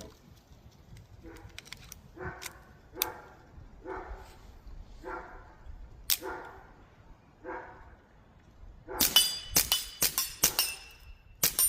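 A dog barks several times, then a suppressed .22 Ruger Mark IV pistol fires a quick string of about eight shots, some with a metallic ring after them.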